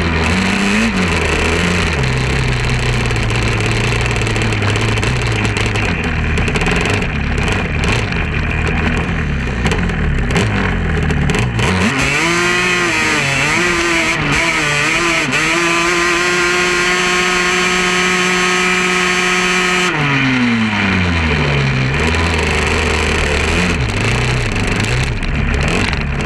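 Sport quad (ATV) engine running at low revs, then revving up sharply about halfway through, holding a high steady pitch for several seconds and dropping back down. Wind rushes over the microphone throughout.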